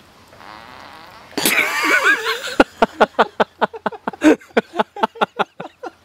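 A chimpanzee breaking wind: a long fart with a wavering pitch about a second and a half in, then a rapid run of short sputtering pops.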